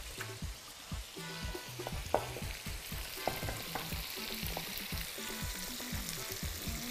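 Food sizzling in hot oil in a pan, a steady hiss, with a few sharp knocks, the loudest about two seconds in, over a soft low bass line of background music.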